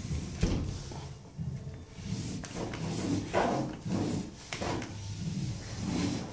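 Cloth rubbing over a shower cubicle panel and its trim in irregular hand-scrubbing strokes, with a few sharp knocks as the hand bumps the panel.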